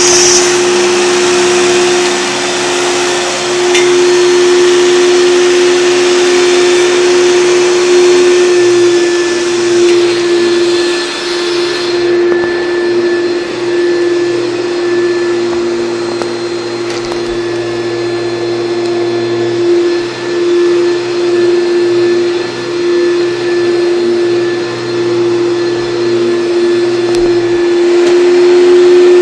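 1994 Hoover Turbopower 2 U2462 upright vacuum cleaner running steadily at its single speed, a constant motor whine over rushing air. The high hiss of the airflow thins about twelve seconds in.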